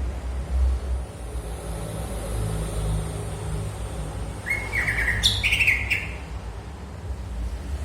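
Birds chirping: a short run of quick, stepped chirps about halfway through, over a steady low rumble.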